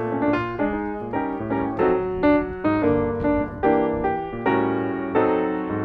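Background piano music: a steady run of single notes, about three a second, each struck and left to fade.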